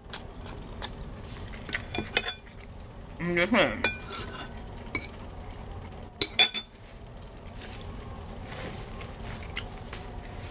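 Metal fork clinking against a bowl of pasta a few times, with a brief falling squeak about three and a half seconds in and the loudest clinks just past six seconds.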